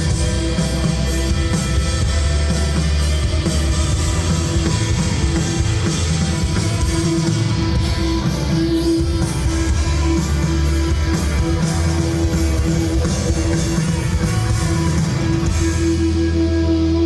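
Live rock band playing, with guitars and drum kit, loud and sustained; the upper sounds thin out near the end as the piece winds down.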